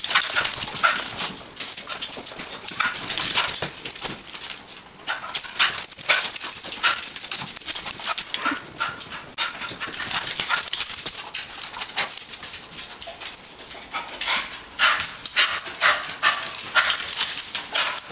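Small dog whimpering and yipping in many short, quick bursts, with a brief lull about five seconds in; a dog's greeting after being shut away.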